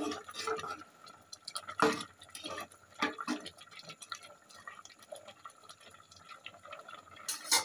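A ladle stirring boiling rice and bottle-gourd leaves in their cooking water in an open aluminium pressure cooker: liquid sloshing, with a few scattered knocks of the ladle against the pot.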